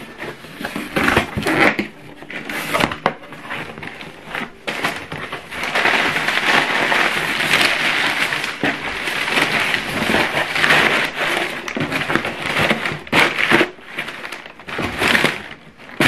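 Cardboard shipping box being opened by hand: scrapes and knocks on the cardboard, then a long stretch of crumpled packing paper crinkling and rustling as it is pulled out, with more scattered crackles near the end.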